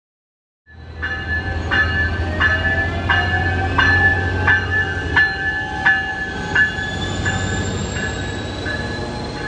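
Coaster commuter train's Siemens Charger diesel-electric locomotive going by, cutting in abruptly just under a second in: a steady low engine drone, its bell ringing about every 0.7 seconds, and a whine rising slowly in pitch as the train gathers speed.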